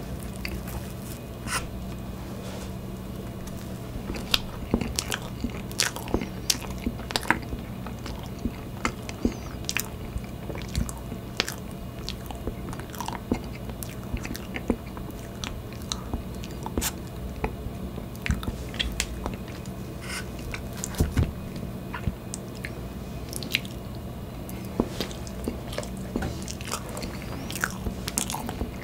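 Close-miked eating of a soft tiramisu cake: chewing and mouth sounds with frequent short sharp clicks, over a steady low hum.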